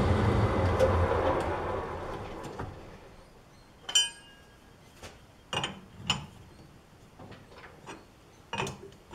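Metal lathe with a four-jaw chuck spinning down after being switched off, its running noise fading over the first couple of seconds. Then several sharp metal-on-metal clinks, the first with a short ring, as steel tools are handled at the stopped chuck.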